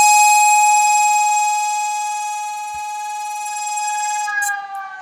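An emergency alert siren tone plays back: one steady high tone with many overtones, held, then falling in pitch a little after four seconds in.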